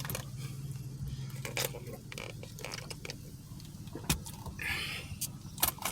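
Car being driven slowly, heard from inside the cabin: a steady low engine and road hum with scattered small clicks and rattles.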